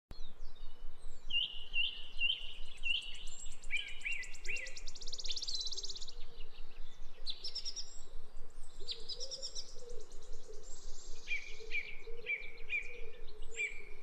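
Small songbirds singing: rows of short whistled notes repeated in quick series, and two spells of fast, high trills, over a steady faint hiss of forest background.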